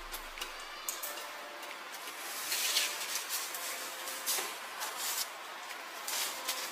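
Scattered crackling and rustling of a crisp, flaky puff-pastry wafer being handled and bitten, in short irregular bursts, the loudest about two and a half seconds in.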